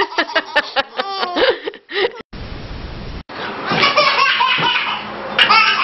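A baby laughing in quick, breathy bursts, stopping about two seconds in. A short burst of noise and a brief dropout follow, then other, unclear pitched sounds.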